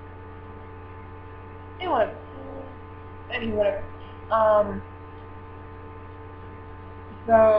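Steady electrical mains hum, with a few short wordless vocal sounds from a young woman; the first, about two seconds in, falls in pitch.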